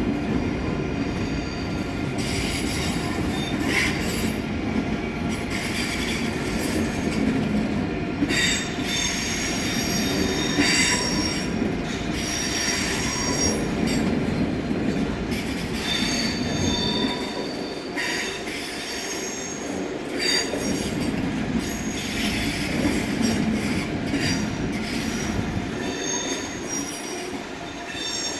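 ICE high-speed train pulling out at low speed over the station's points and curves, its wheels squealing shrilly on and off over a steady rolling rumble.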